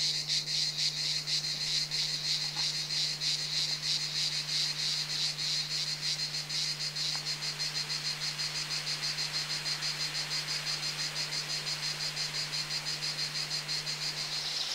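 Insect chirring: a high-pitched trill of rapid, even pulses, with a low steady hum underneath.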